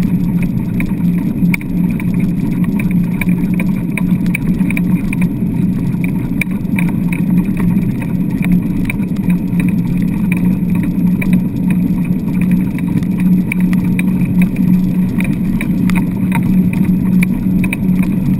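Dryland dog rig rolling fast over wet sand: a steady low rumble with a constant light rattling, heard through a camera mounted on the rig.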